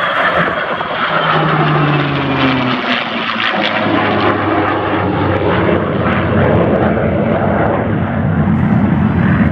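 F-22 Raptor and P-51 Mustang flying past in formation: the jet's turbofan noise mixed with the Mustang's propeller engine, a loud steady drone with no let-up.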